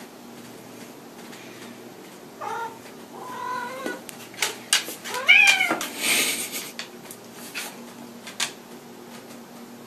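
A house cat meows three times in a row, the last call rising and then falling in pitch. A few clicks and a short burst of rustling come between and after the calls.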